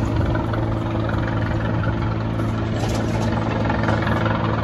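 Military helicopter hovering, its rotor and engine making a steady, even drone.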